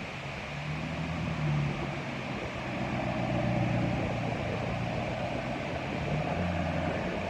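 Tropical-storm wind buffeting the microphone with a low rumble that swells in gusts, over the wash of storm waves breaking against a seawall bulkhead.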